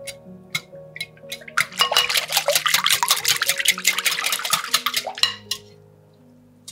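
Wire balloon whisk beating eggs and milk in a glass bowl. A few taps at first, then about four seconds of fast clicking of the wires against the glass and sloshing of the liquid. It stops abruptly near the end.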